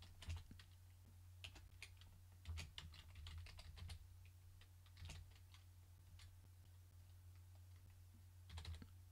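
Faint keystrokes on a computer keyboard, typing a name in irregular runs, busiest about two and a half to four seconds in and again near the end, over a low steady hum.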